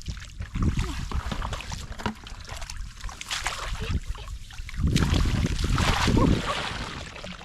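Water sloshing and splashing with irregular crackling, under wind and handling rumble on the microphone that swells loudest about five to six seconds in.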